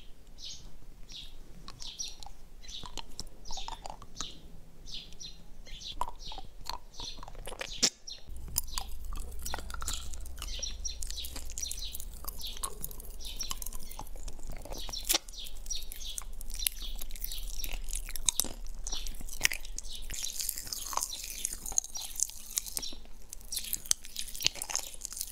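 Close-miked wet mouth sounds of licking, sucking and biting a chocolate donut-shaped lollipop: a dense run of sharp clicks, smacks and crunches.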